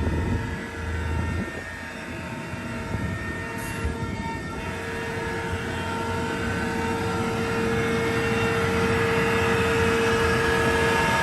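Sullair LS100 40 hp rotary screw air compressor, driven by a Toshiba electric motor, running steadily: a steady pitched tone over a rushing noise, slowly getting louder.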